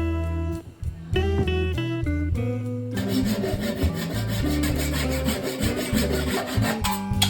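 Plucked-string background music, then from about three seconds in a hand tool rubbing across wood with rapid back-and-forth strokes, over the music. This is the working of a wooden chair leg to level it.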